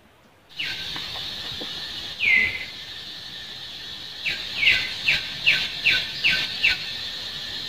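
Bird calling in short notes that slide downward: one note about two seconds in, then a quick run of six notes a little over two a second. Under it runs a steady high drone that sets in suddenly just after the start.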